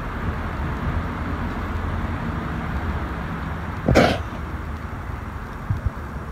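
A man's single short cough about four seconds in, over a steady low background rumble.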